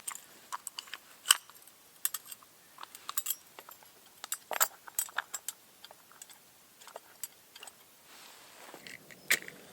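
Irregular sharp clicks and light clinks, scattered unevenly, with louder ones about a second in, about four and a half seconds in, and near the end.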